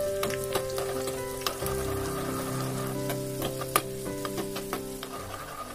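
Cashew nuts and raisins sizzling in hot ghee in a small pan, stirred with a metal spoon that clicks against the pan now and then, as they turn golden brown and the raisins puff. Soft held background tones run underneath.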